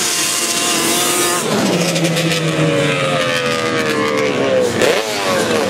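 Racing ATV engine at full throttle on a sand drag run. Its pitch climbs sharply about a second and a half in, sags slowly, then dips and climbs again near the end.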